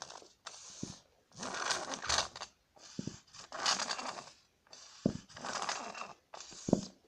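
Glue and shaving-foam slime mixture being stirred and scraped in a bowl: a run of scraping, hissing strokes about a second long each, with a few short wet squelches.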